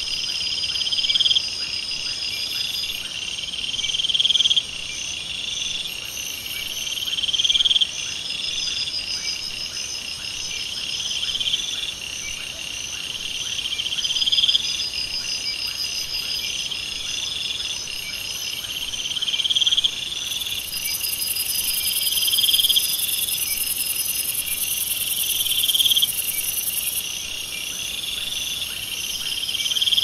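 Insects calling in a shrill, steady chorus; one call swells and then cuts off sharply, again and again, every three seconds or so.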